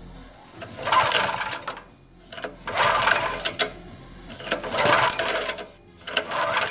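Small generator engine being pull-started by its recoil rope, four pulls about two seconds apart, each a second-long rapid rattle of the engine turning over. The engine has been primed with Aerostart starting fluid sprayed through the spark plug hole.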